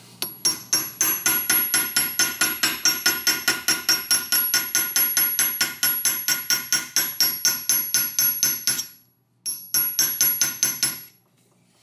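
Rapid, even hammer taps on a small flat screwdriver, about five a second, each blow ringing metallically. The screwdriver is driving a stubborn Woodruff key off the crankshaft. The tapping stops for a moment near the end, then resumes briefly.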